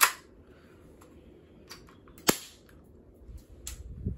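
Two sharp snaps from a spring-powered airsoft pistol, the first right at the start and the second a little over two seconds later, with lighter clicks and handling noise between and after.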